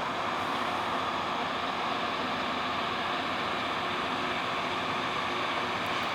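A rail grinding train's diesel engines and machinery running, a steady unbroken rushing noise.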